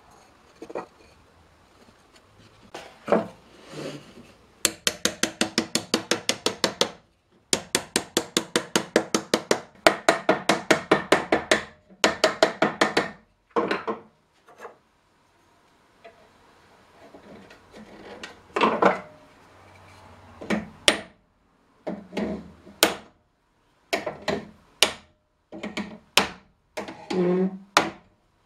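Hammer blows on a hoop driver, driving a metal hoop down over the cherry staves of a barrel being raised. The strikes come in fast, even runs of about ten a second through the first half, then as single blows and short groups.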